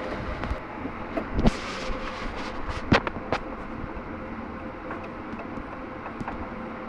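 A handful of sharp knocks and clicks, most of them in the first half, over a steady background hum.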